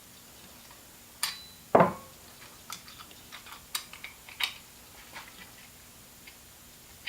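Metal parts of an NP246 transfer case selector fork assembly clinking and knocking as they are worked by hand. A sharp click comes just over a second in and the loudest knock a little later, followed by scattered light ticks.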